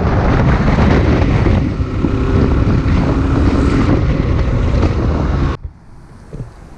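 Yamaha RZ250's parallel-twin two-stroke engine running on the move, with heavy wind noise on the microphone. It cuts off abruptly near the end, leaving a quieter wind hiss.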